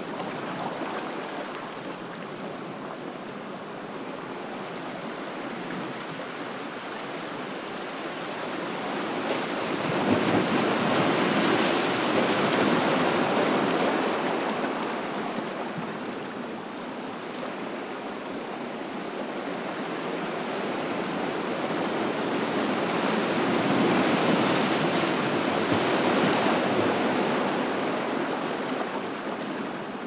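Ocean surf on a beach: a steady wash of breaking waves that swells twice, about a third of the way in and again later on.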